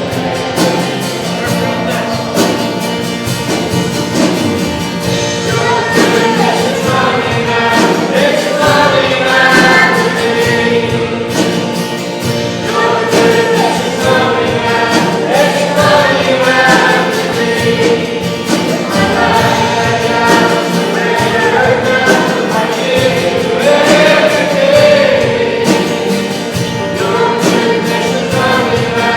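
A church congregation singing a worship song together with instrumental accompaniment, in long sung lines.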